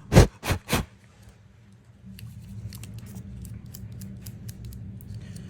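Three quick puffs of breath blown onto an AirPods charging case in the first second, then faint, irregular little scratchy clicks from small handling of the case.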